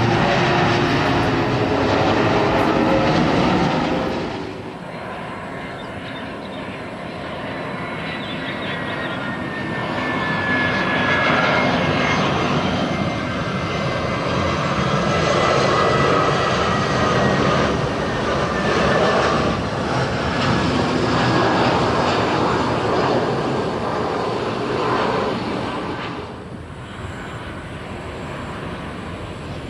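Jet airliners on final approach passing overhead with their engines running. First an Airbus A330-900neo, then from about four seconds an Airbus A320-214, whose engine whine falls in pitch as it goes by. Near the end comes a Boeing 737-800.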